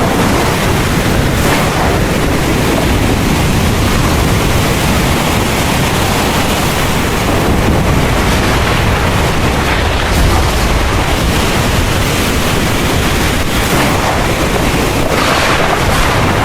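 Heavy rain pouring steadily, with a deep rumble of thunder rolling underneath.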